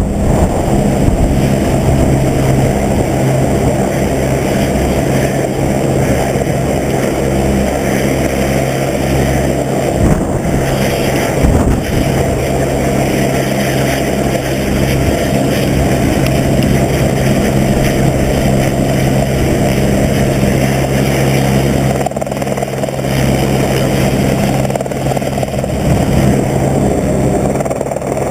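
Helicopter running steadily and loudly, its rotor and engine giving a constant droning hum.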